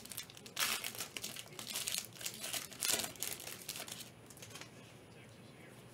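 A foil trading-card pack being torn open, its wrapper crinkling in a run of short rustles that die away about four seconds in.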